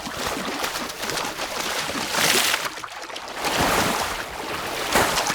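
River water sloshing and splashing, swelling louder about two seconds in and again near the end.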